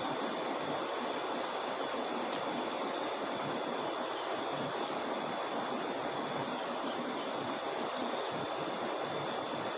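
Flood-swollen river rushing and churning steadily, with steady faint high tones above it.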